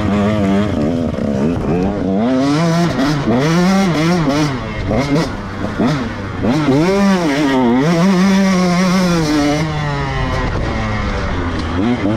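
KTM 150 two-stroke dirt bike engine being ridden hard, its pitch repeatedly climbing and dropping as the throttle is worked and the gears change.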